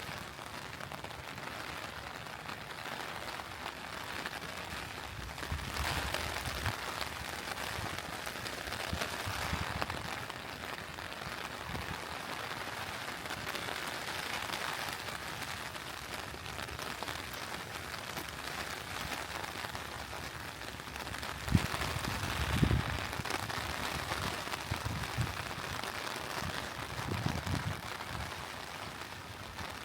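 Steady rain, with low rumbles of thunder about six seconds in and again around twenty-two seconds in, the second opening with a sharp crack.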